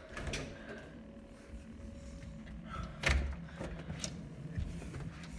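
A door being handled: a thump about three seconds in, with lighter clicks and knocks around it.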